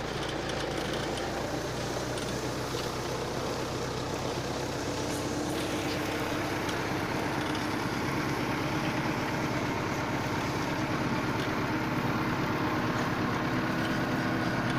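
Massey Ferguson 575 tractor's four-cylinder diesel engine running steadily, its note shifting a little about five to six seconds in and growing slightly louder toward the end.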